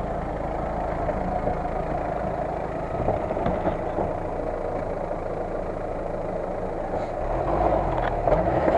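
Lada Niva 4x4's engine running at low revs as it drives slowly past. About seven seconds in it revs up and gets louder.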